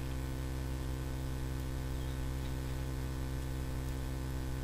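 Steady electrical mains hum with many evenly spaced overtones, picked up by the recording setup, under a faint hiss and a few faint ticks.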